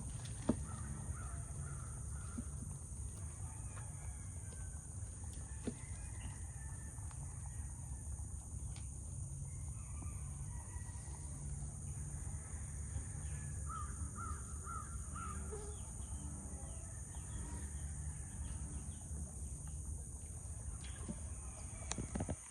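Outdoor ambience with a steady high insect drone, over which a crow caws, with a quick run of four caws about two-thirds of the way through. A low rumble and a few faint clicks sit underneath.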